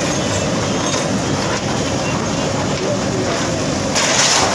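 JCB 3DX backhoe loader's diesel engine running under load as its bucket arm pushes against a concrete shop front. A louder burst of crumbling, grinding noise comes near the end as the concrete gives way.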